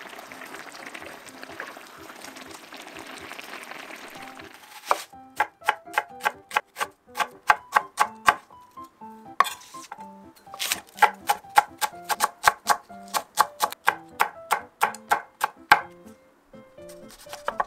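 Chef's knife slicing an onion on an end-grain wooden cutting board: a run of crisp cuts, about three a second, starting about five seconds in, with a short break in the middle. Light background music plays throughout, and a steady soft hiss comes before the cutting starts.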